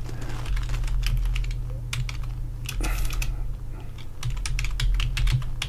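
Typing on a computer keyboard: irregular key clicks over a low steady hum.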